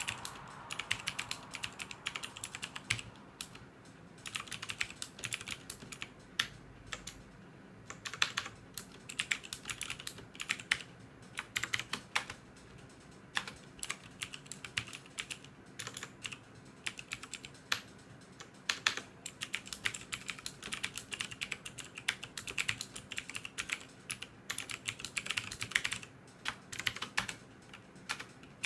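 Typing on a TVS Bharat Gold mechanical keyboard: irregular runs of sharp key clicks with short pauses between them.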